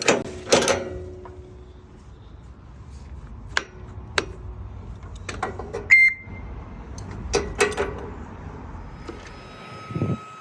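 Boom lift running with a steady low engine hum under a series of sharp metal clanks and clicks, with a short beep about six seconds in. Near the end a steady whine of several high tones sets in.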